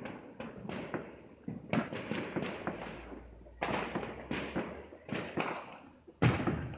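Neighbourhood fireworks and firecrackers going off in rapid clusters of cracks and bangs, each cluster trailing off. The loudest bang comes a little after six seconds in.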